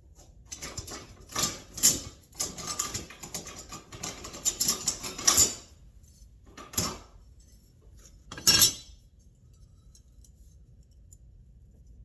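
Small metal tools and parts clinking and clattering as they are handled on a workbench, a busy run of rattles followed by two separate sharper knocks about two seconds apart.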